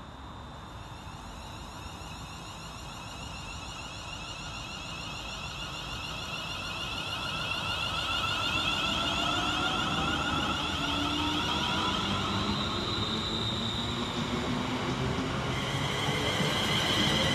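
Class 350 Siemens Desiro electric multiple unit pulling away and accelerating past, its traction motors whining in several rising tones that grow louder as it draws level.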